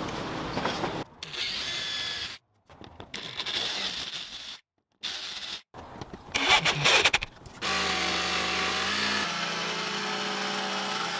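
Short workshop clips broken by abrupt cuts. A drill drives screws through an aluminium strip into wood in bursts, then a jigsaw runs steadily, cutting wood, for the last few seconds.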